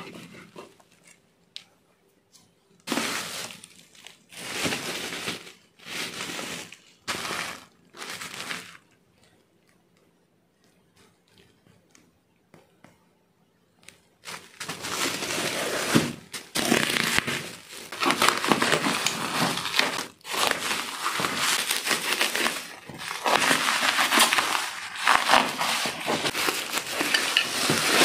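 Bubble wrap being handled and torn open: a few short rustles of the plastic, a pause, then from about 14 seconds in a continuous crinkling and tearing as the wrap is pulled off a cardboard box.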